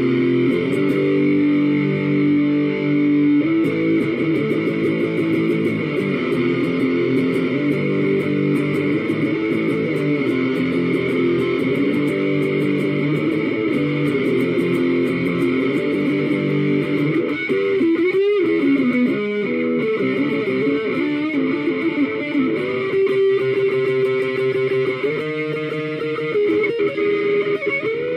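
Strat-style electric guitar with two humbuckers playing sustained chords and riffs with a distorted, driven tone. About two-thirds of the way through there is a wavering pitch bend, and quick repeated notes follow near the end.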